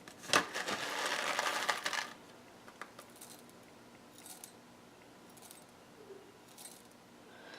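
Small cetyl alcohol pellets rattling and clinking as they are poured into a glass Pyrex dish, a sharp click then about a second and a half of rattling, followed by a few faint ticks.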